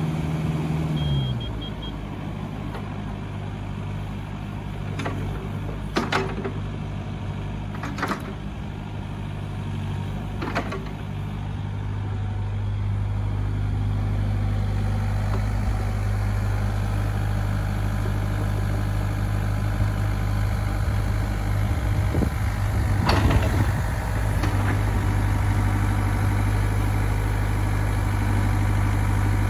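Kubota U40-6 mini excavator's diesel engine running, dropping from a higher speed to a steady idle about a second in, then picking up a little again about halfway through as the upper structure swings round. A few sharp clunks from the machine sound in the first ten seconds and again near the end.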